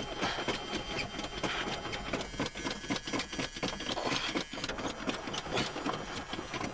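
Starter motor cranking the Mercury station wagon's big V8 in a steady, even rhythm without the engine catching: it turns over but does not fire, as a car that has sat for years and has no fuel reaching it.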